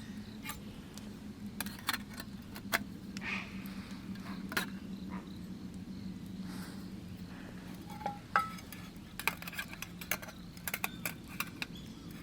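Scattered light metallic clinks and taps of camp cookware and utensils being handled, a few ringing briefly, over a steady low hum.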